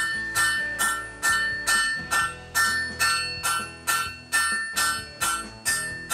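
Hand hammer striking hot steel on an anvil in a steady rhythm, about two blows a second, each leaving a bright ringing tone. The bar is being rolled between blows to round off the corners of a forged taper.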